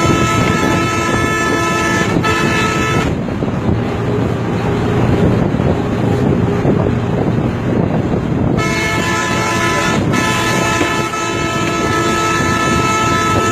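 Bus horn sounding in long held blasts over the bus's engine and road rumble: a blast for the first three seconds with one short break, a stretch of engine and road noise alone, then the horn held again from a little past halfway, broken once briefly.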